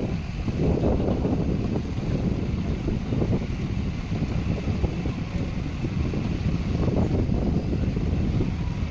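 Earthmoving machinery running with a steady low rumble, with wind buffeting the microphone in irregular gusts.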